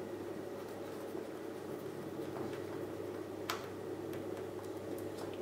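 Faint clicks and scraping of a small screwdriver turning tiny screws into a smartphone's back frame, with one sharper click about three and a half seconds in, over a steady low room hum.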